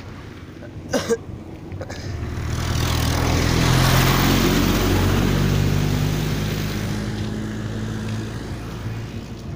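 A truck passing close by: its engine and tyre noise swell up over a couple of seconds, peak about four seconds in, then fade away slowly as the engine note drops slightly in pitch.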